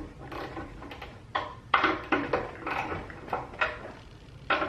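Cordless electric ratchet run in a series of short bursts, spinning out the bolts on an exhaust pipe flange.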